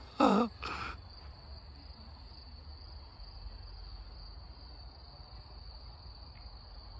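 Crickets chirping in a steady high trill, over a low rumble of wind on the microphone. Near the start come two short, loud sounds, the first falling in pitch.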